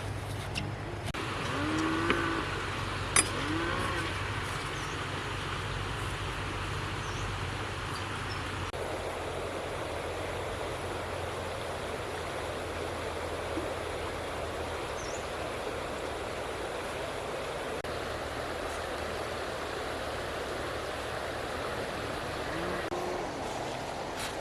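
Steady rush of water over a low engine hum, with a few short calls rising and falling near the start and again near the end.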